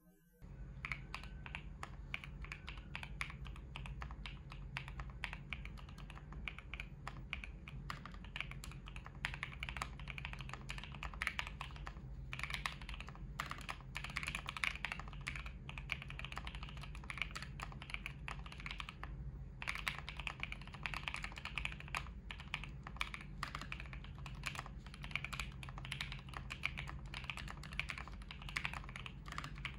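Typing test on an IV Works AV3 ergonomic custom mechanical keyboard with linear Frankenswitches (JWK Lilac housings, NovelKeys Cream stems, Krytox-lubed and filmed), a gasket-mounted FR4 plate and blank PBT keycaps. Fast, continuous keystrokes, with two brief pauses about twelve and nineteen seconds in.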